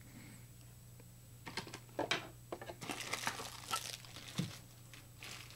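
Cardboard packaging being handled: scattered light rustles and taps starting about a second and a half in, over a faint low steady hum.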